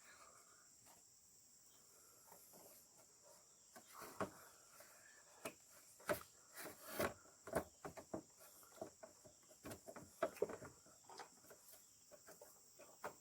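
Scattered light clicks and knocks of hand work on parts and tools, over a steady chirring of crickets.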